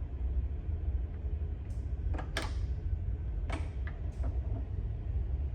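A few sharp plastic clicks and knocks as a car's exterior door handle is propped open and its end cover worked free, over a steady low hum.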